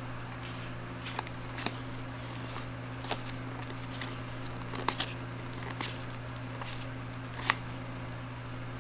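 Pokémon trading cards being handled, passed from one hand to the other, with several short sharp card flicks and snaps, the loudest near the end, over a steady low hum.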